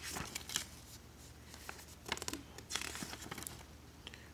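Paper pages of a printed storybook being flipped, a few brief papery rustles.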